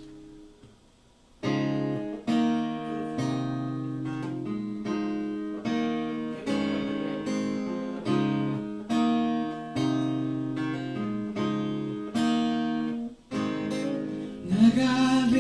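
Acoustic guitar strumming a slow chord progression as a song intro, about one strum a second, each chord left to ring. It starts after a short pause about a second and a half in, and a singing voice comes in near the end.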